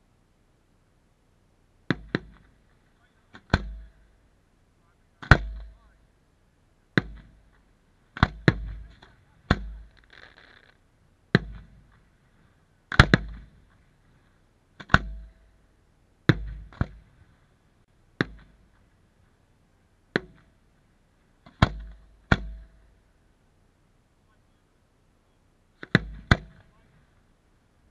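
Aerial firework shells going off in a steady series, a sharp bang every second or two, each trailing off over about a second, with a pause of a few seconds before a last pair of bangs near the end.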